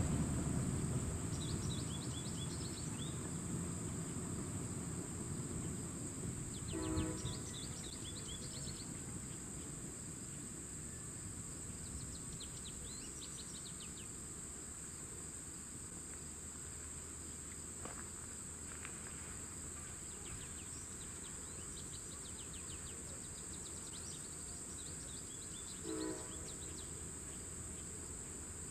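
Steady high insect drone from a summer countryside, with short phrases of quick high bird chirps every few seconds and two brief harsher calls, about seven seconds in and near the end. A passing train's low rumble dies away over the first few seconds.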